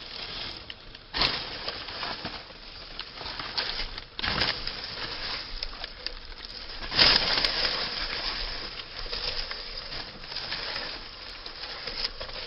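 Hand hoe chopping into and dragging through loose soil among dry crop stalks, with three heavier strokes about three seconds apart, the loudest about seven seconds in, and crunching straw in between. It is loosening a strip of earth for sowing.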